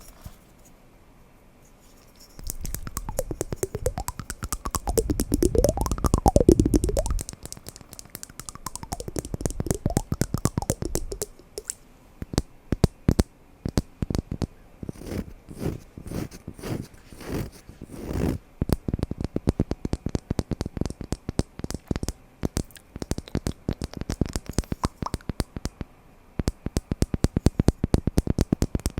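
Wooden blocks handled close to the microphone. A low rumble with slowly rising and falling tones, like wood rubbed or rolled against wood, starts about two seconds in and lasts several seconds. Then comes a long run of quick, sharp wooden taps and knocks, several a second.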